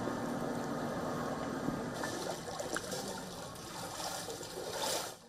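Running water: a steady wash of noise that changes character about two seconds in and cuts off abruptly at the very end.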